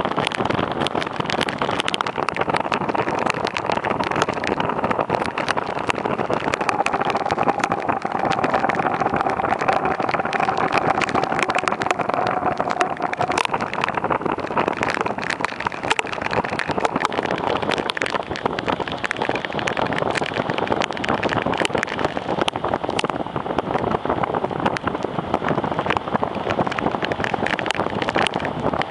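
Steady rush of storm wind and rain, with gusts crackling against the microphone.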